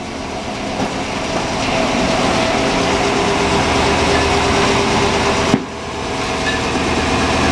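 Frick circular sawmill cutting through a log, its big blade running in the wood with a steady whine over a loud mechanical din from the 65-horsepower drive working hard under the load. The sound drops away suddenly for a moment about five and a half seconds in, then builds back up.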